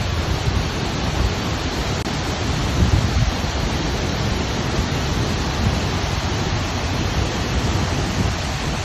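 Waterfall rushing: a steady, dense noise, heaviest in the low end.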